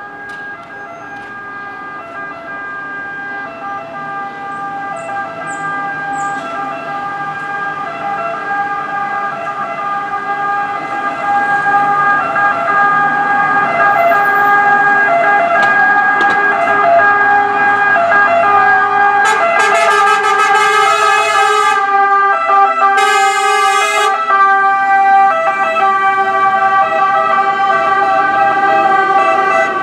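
Sirens of Italian fire brigade vehicles, a fire engine followed by a pickup, responding to a call. The sirens grow steadily louder over the first ten seconds or so as they approach, then stay loud. Two brief, harsher blasts come about two-thirds of the way in.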